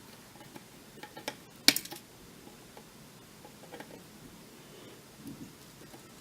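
Wire cutters snipping the soldered resistor leads on a circuit board: a sharp snip about two seconds in, with a few lighter clicks of handling before and after it.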